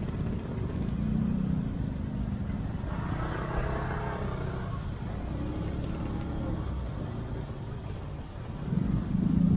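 Motor scooter engines and car traffic running at low speed in a slow-moving jam, a steady low rumble that swells near the end.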